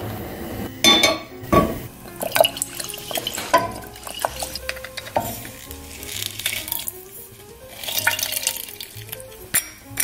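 Background music over kitchen sounds: clinks and knocks of a saucepan and utensils on a gas stovetop, and liquid pouring into the pan.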